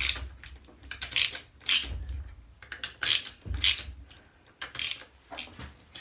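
Hand ratchet wrench clicking in short, uneven strokes, with a few dull knocks, as the shifter housing's hold-down bolts are tightened down.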